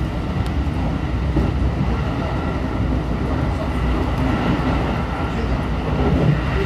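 JR Central 313 series electric multiple unit running along the line, heard from inside the car: a steady rumble of wheels on rails with a few light clicks and a faint steady high tone.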